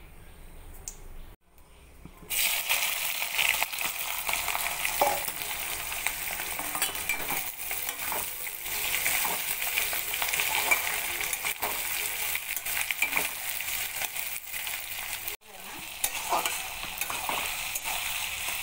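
Sliced onions frying in hot oil in a metal wok, a dense steady sizzle, with a spatula scraping and stirring them around the pan. The sizzle starts loudly about two seconds in, after a quieter opening, and breaks off briefly near the end.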